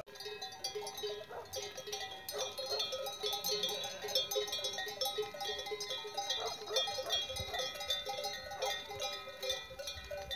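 Bells on a moving flock of sheep ringing continuously in a dense, overlapping jangle, with a few sheep bleating now and then.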